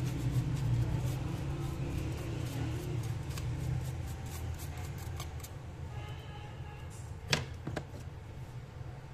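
Low steady hum of an idling engine in the background, with scattered light clicks. Near the end a hand handling the opened phone on the bench makes a sharp tap and a smaller click.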